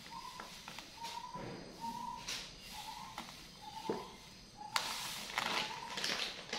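Granulated sugar poured from a plastic bag into a glass jar, a soft hiss with a few small clicks; from about two-thirds of the way in, a louder crinkling hiss as the plastic bag is handled. A short high chirp repeats several times.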